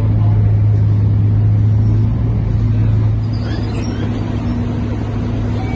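Scania K230UB single-deck bus's diesel engine and ZF automatic gearbox droning under the floor, heard from inside the passenger cabin. The drone eases a little about two seconds in and again a second later as the bus slows toward a stop.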